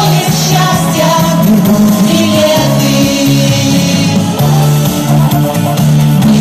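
Women's vocal group singing a pop song into microphones over loud amplified accompaniment with a steady bass line.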